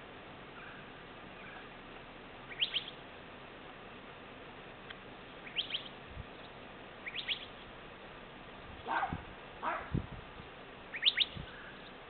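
Small bird chirping in short clusters of two or three quick, rising high notes, four times. About nine and ten seconds in come two duller, lower calls or knocks, all over a steady background hiss.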